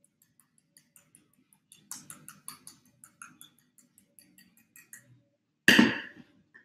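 Rapid light ticking of a hand-held kitchen utensil worked over a bowl as oat flour is shaken into it, the ticks growing denser about two seconds in. Just before the end, one loud knock.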